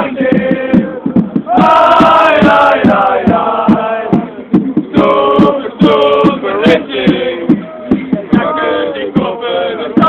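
Football supporters chanting: a crowd of men singing together in the stands, with sharp beats keeping a steady rhythm.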